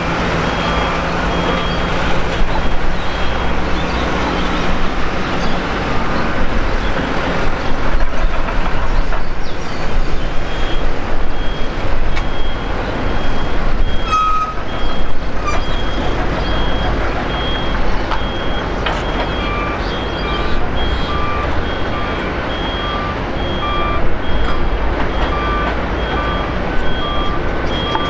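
Jet engines of a taxiing Boeing 787 airliner running with a steady rumble and hiss. Reversing alarms beep repeatedly over it, a high-pitched one throughout and a lower one joining past the middle.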